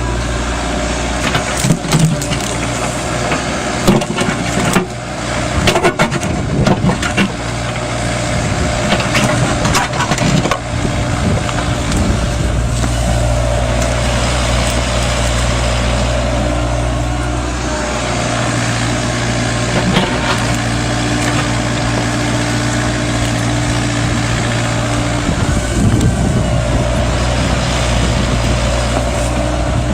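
Mini Kubota excavator's diesel engine running steadily under hydraulic load. During the first third there are sharp knocks and scrapes, typical of the bucket striking and dragging through stones.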